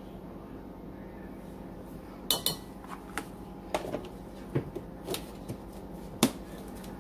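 Kitchen utensils and containers clinking and knocking out of frame while sugar is measured out: a quiet first two seconds, then a run of sharp taps and clinks, the loudest about six seconds in, over a steady low hum.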